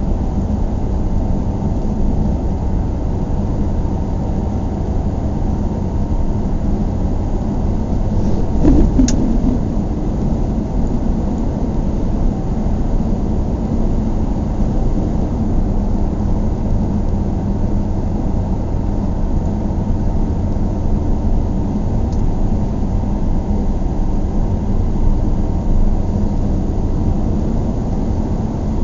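Car driving: a steady low rumble of road and engine noise, with a brief louder bump and a sharp click about nine seconds in.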